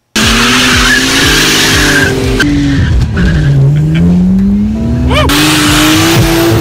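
A BMW E36 M3's swapped-in N54 twin-turbo straight-six pulling hard under full throttle, with tyre squeal from the rear wheels spinning. The revs drop about halfway through, then climb steadily. This is the wheelspin of a worn limited-slip differential that leaves the car on one wheel of traction.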